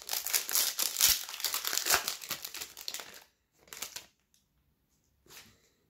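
Foil wrapper of an Upper Deck hockey card pack crinkling as the pack is opened, for about three seconds, then two brief rustles.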